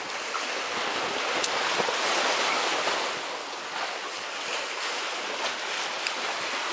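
Steady wash of sea surf breaking and churning against the concrete tetrapods of a breakwater.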